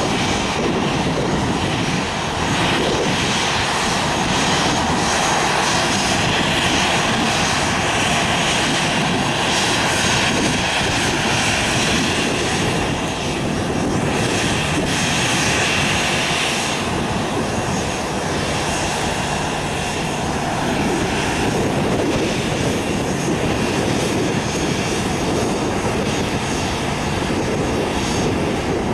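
A Boeing 737-800's twin CFM56-7B turbofan engines run steadily as the jet rolls slowly along the runway. The sound is a constant jet roar with a faint whine above it that wavers a little in pitch.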